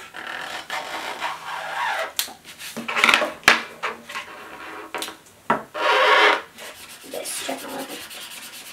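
Felt-tip marker tips rubbing and scratching across paper in repeated strokes, the loudest about three and six seconds in, with a few sharp clicks and knocks of markers being picked up and set down on the table.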